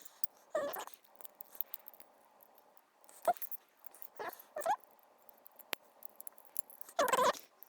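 A few short, high-pitched squeaks or whines, each bending in pitch, with the longest near the end.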